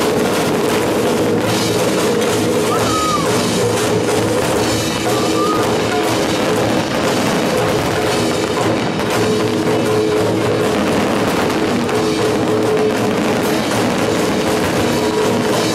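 Loud live rock music from an outdoor concert stage, with the drum kit prominent and sustained held notes over a steady beat.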